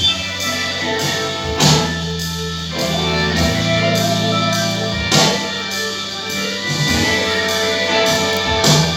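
Music with guitar and drums, keeping a steady beat.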